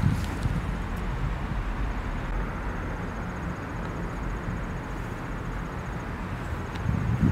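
Steady outdoor background noise: a low rumble with an even hiss over it and no distinct events.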